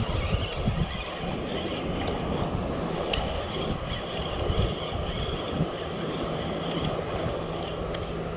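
Wind buffeting the microphone over sea water lapping around the angler, with the steady whir of a spinning reel being cranked as a hooked fish is reeled in.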